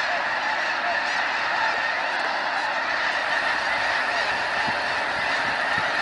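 A huge flock of geese calling all at once, a steady, dense din of overlapping honks.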